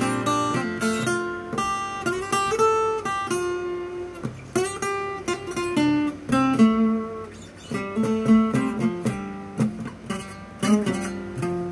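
Steel-string acoustic guitar flatpicked: a run of quick single-note lead lines in G major with a country flavour, each note picked separately and some left ringing.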